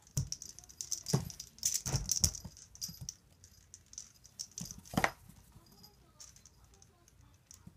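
A kitten playing roughly inside a cardboard box with a wire-grid lid: irregular knocks on the cardboard and rattling of the wire, busiest in the first two seconds, with a last loud knock about five seconds in, then only small scratches and ticks.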